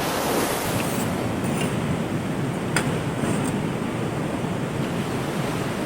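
Ocean surf breaking on a beach, a steady wash of waves, with wind buffeting the microphone and one brief click near the middle.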